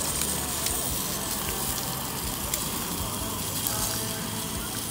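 Meat skewers sizzling and crackling on a Coleman gas camp grill stove: a steady hiss with scattered small pops.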